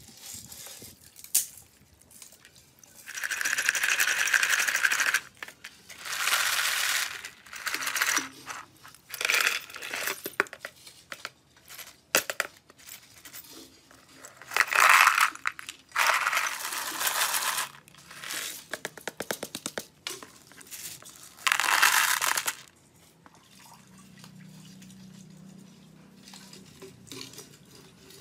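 Small rusty bicycle parts (nuts, bolts, washers, a sprocket and loose ball bearings) rattling and clinking against plastic tubs and a plastic basket as they are rinsed with water and tipped out, in several bursts of a second or two.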